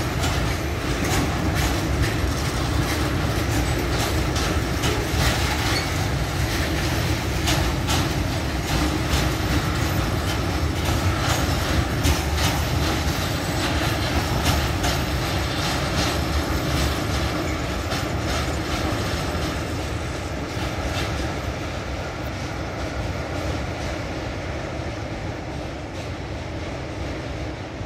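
Freight train of tank wagons rolling past, the wheels clicking steadily over rail joints with a heavy rumble. It fades over the last several seconds as the train draws away.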